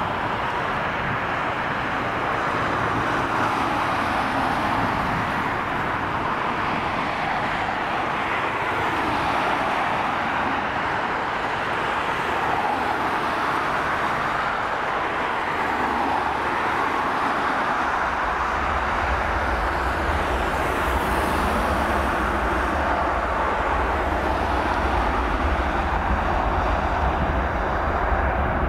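Airbus A321-231 airliner's twin IAE V2500 turbofan engines running steadily as it taxis onto the runway. About two-thirds of the way through, a deep rumble comes in under the engine noise as thrust builds for the takeoff roll.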